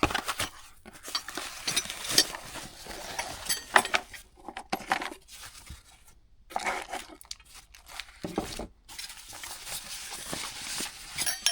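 An all-glass LED dome light being taken out of its packaging: rustling and tearing of the wrapping, with many small clicks and clinks of glass and metal parts being handled.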